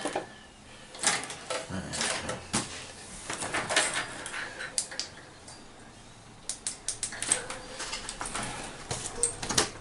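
Plastic parts of a pair of headphones being handled and pried at: irregular clicks, creaks and scrapes, with a short lull in the middle, as a glued-on cover on the ear cup is worked loose.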